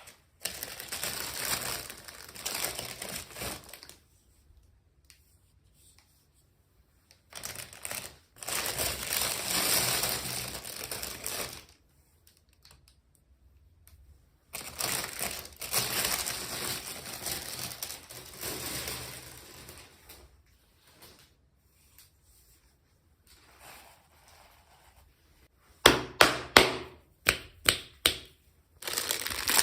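Plastic toy packaging crinkling in three long bouts of handling, with quiet pauses between them. Near the end comes a quick run of about eight sharp clicks.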